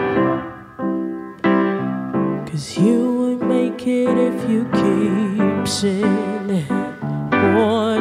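Slow keyboard chords, joined about a third of the way in by a woman's voice holding long wordless notes with a wavering vibrato over them.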